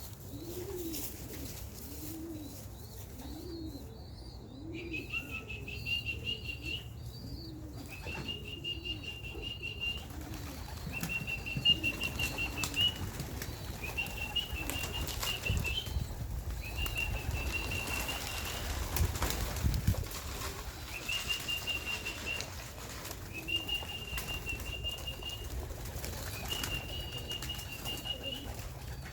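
Young racing pigeons flapping their wings as they fly about and land at the loft, with pigeons cooing over the first several seconds. A steady high whistled note repeats every couple of seconds from about five seconds in, a call to bring the birds in to the trap.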